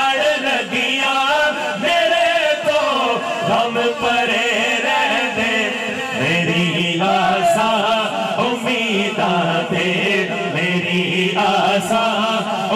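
Devotional Islamic salam to the Prophet chanted in long, wavering, drawn-out melodic lines, the held notes continuing without break.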